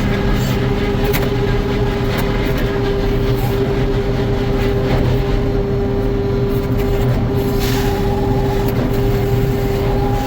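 Sawmill machinery running steadily, a constant hum over a low rumble, with a few sharp knocks and clatters.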